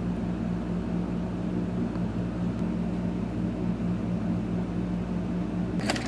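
A steady, unchanging low machine hum with a few even tones, like a running motor or compressor. Short clicks and rustling come in just before the end.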